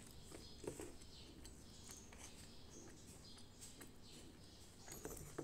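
Faint eating sounds: quiet chewing and small mouth clicks as rice is eaten by hand, with a few soft clicks of fingers working rice on a steel plate.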